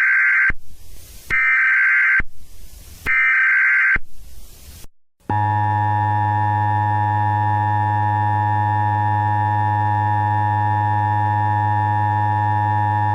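Emergency Alert System header tones: three short bursts of buzzing digital data tones, each about a second long. Then comes the EAS attention signal, a steady harsh alert tone held for about eight seconds that starts about five seconds in and cuts off at the end. Together they mark the start of a new emergency alert message.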